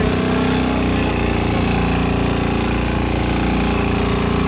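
Boat motor running steadily at an even pitch, with a hiss of wind and water over it.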